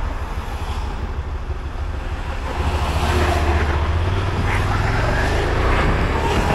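Motorcycle engine running under way, with wind rushing over the helmet-camera microphone; in the last two seconds the engine note rises as the bike accelerates.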